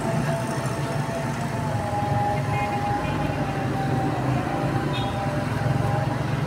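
Steady low motor rumble with a thin, slightly wavering whine over it.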